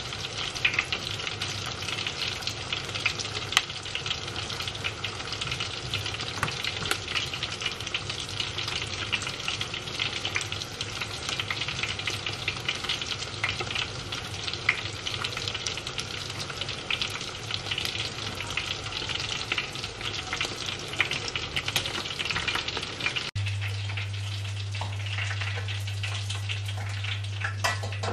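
Chicken-topped bread toasts deep-frying in hot oil, a steady dense sizzle and crackle with small sharp pops. About 23 seconds in it cuts to a steady low hum with fainter, sparser crackling.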